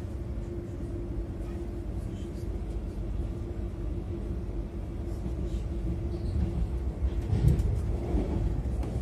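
Stadler ЭШ2 double-decker electric train running, heard from inside the passenger car: a steady low rumble with a constant hum, growing louder and heavier about seven seconds in.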